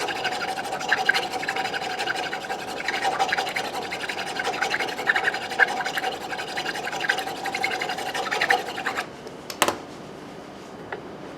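Small rat-tail file rasping back and forth inside a cast metal ferrule, opening up a too-tight hole with casting flash so the tuning machine post will pass through. A steady ring sits under the quick strokes; the filing stops about nine seconds in, followed by a single sharp click.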